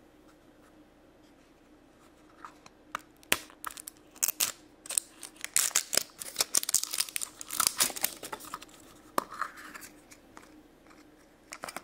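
Crinkling and tearing of the thin plastic wrapper as it is peeled off a Fashems toy capsule, starting about two seconds in. A few sharp plastic clicks follow as the capsule is popped open.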